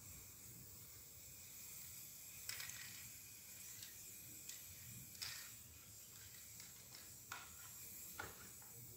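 Aerosol spray-paint can sprayed in several short hissing bursts.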